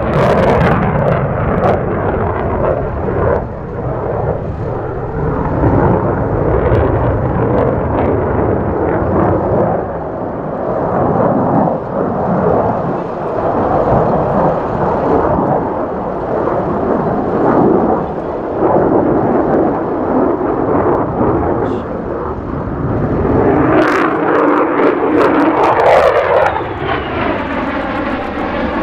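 F-35A Lightning II's single F135 afterburning turbofan running hard, a loud, rough jet rumble that rises and falls as the fighter maneuvers. Near the end the jet passes close and the sound turns into a set of tones sweeping steadily downward in pitch.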